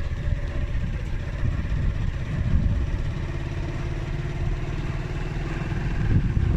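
A motor vehicle's engine running steadily, a low rumble with a fast, even pulse.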